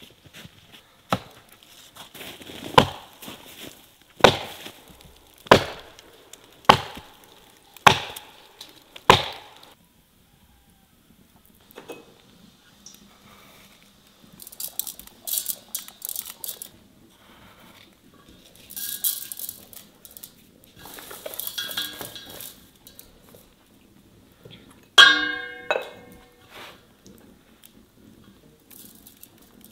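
Seven heavy, evenly spaced knocks about a second and a quarter apart. Then salt and ground spice are pinched from clay pots and sprinkled over raw quails in an enamel bowl, heard as soft hissing rustles in three short spells, and near the end comes one sharp, ringing clink of crockery.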